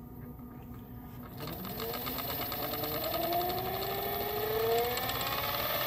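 Electric motor of an IKA Eurostar power control-visc overhead stirrer running up as its speed knob is turned: a whine that sets in about a second and a half in and rises steadily in pitch and loudness.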